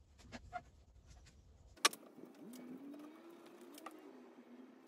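Light taps and scrapes of a silicone glue brush on timber, then one sharp wooden knock about two seconds in as the glued rail is set against the frame, followed by a faint wavering hum.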